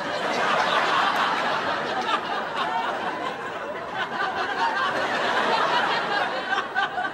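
Audience laughing: a steady wash of many people's laughter, easing a little in the middle and swelling again after about four seconds.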